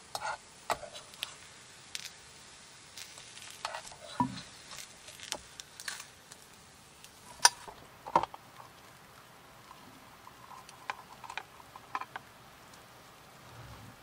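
A spatula scraping and tapping in a small electric cooker pot as a fried egg sizzles faintly, then scattered clicks and clatter as an electric lunchbox rice cooker is handled and its lid unclipped and lifted. The loudest is a sharp click about seven and a half seconds in.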